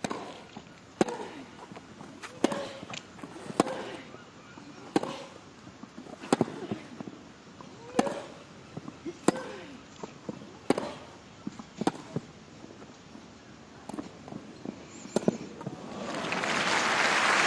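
A long tennis rally: racket strings striking the ball about every 1.3 seconds, back and forth between the two players. Near the end the crowd breaks into applause as the point is won, the applause swelling.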